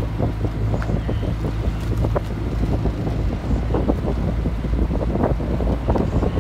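Wind buffeting the microphone, with the steady low hum of an outboard motor beneath it from the launch pacing the rowing shell.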